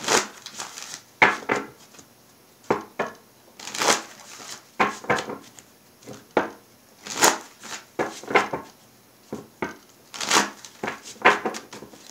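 A deck of cards being shuffled by hand: a run of short rustling swishes and slaps of the cards, irregular, about one a second.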